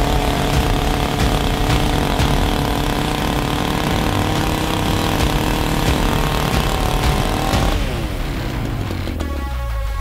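Champion two-stroke petrol chainsaw running at a steady speed. About eight seconds in its revs fall away, the engine slowing down sharply for the last couple of seconds.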